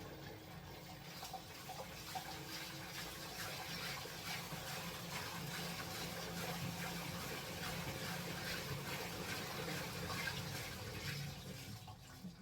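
Water running and splashing inside the tub of an LG Black Label Plus T16MU top-loading washing machine, steady with a low hum underneath, easing off near the end.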